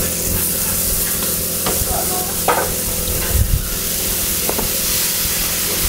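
Slices of beef tongue sizzling steadily on a hot flat-top griddle as sauce is squeezed over them from a squeeze bottle.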